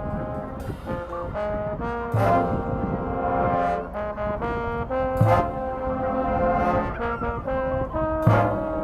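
High school marching band playing, its brass section holding loud sustained chords that change every second or so, with a strong accented hit about every three seconds.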